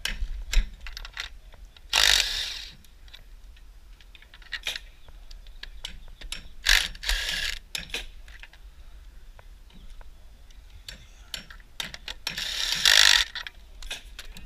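Tools at work: scattered sharp clicks and knocks, with three short raspy mechanical bursts about two, seven and thirteen seconds in.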